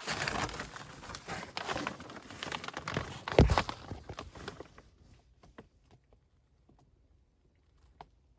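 Rustling, crinkling and scraping movement in a crawlspace, with one heavy thump about three and a half seconds in, trailing off into a few faint scattered ticks.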